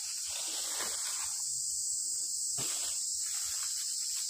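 Steady high-pitched insect drone, with dry straw and dead leaves rustling and crackling as they are trodden and handled, including one sharp snap about two and a half seconds in.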